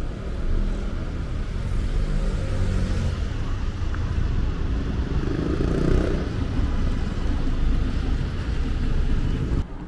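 Street traffic: a vehicle's engine rumbling close by, swelling about half a second in and holding steady, then dropping off suddenly near the end.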